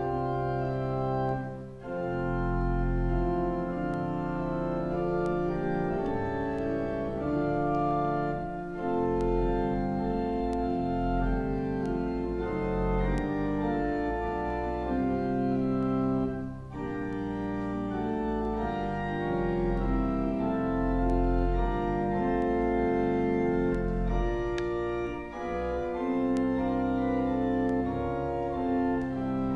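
Church organ playing slow, sustained chords over a deep pedal bass, with short breaks between phrases.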